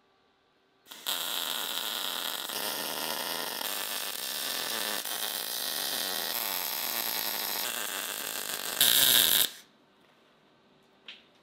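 MIG (wire-feed) welding arc running steadily, starting about a second in and stopping suddenly after about eight and a half seconds, loudest for a moment just before it stops.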